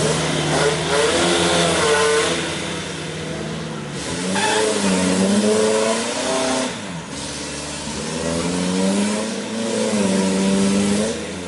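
Off-road jeep engine revving hard in about three long surges, its pitch climbing and dropping with each push of the throttle.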